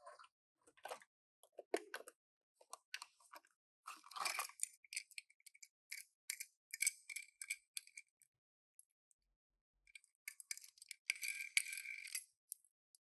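Small toy cars and their plastic packaging being handled: a string of light clicks, taps and small clinks, with a lull in the middle.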